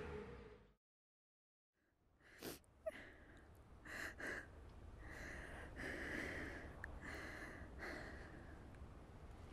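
A car engine fades away, followed by a second of silence. Then a person breathes with gasps, about one breath a second.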